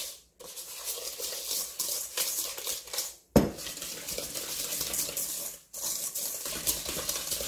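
Wire whisk scraping and rattling rapidly against a stainless steel mixing bowl, creaming butter, peanut butter and sugar into a stiff topping mixture, with one sharp knock about three seconds in.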